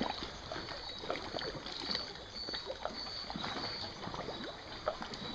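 Outdoor night ambience: a steady crackling, rustling noise with scattered small clicks, and a few short high chirps repeating about twice a second around the middle.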